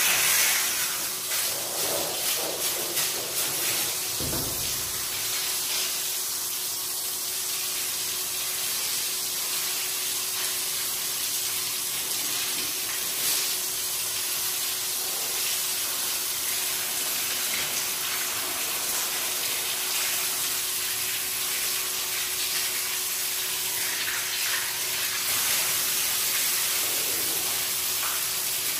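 Water spraying steadily onto a wet rug as it is washed. It is a dense hiss that starts suddenly, with a faint steady hum underneath.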